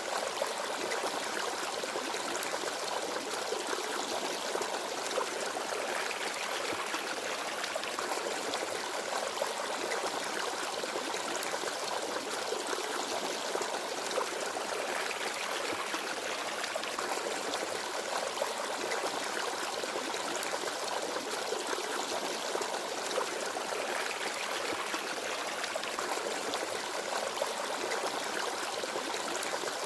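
A small forest stream babbling and trickling over stones, a steady flow of water.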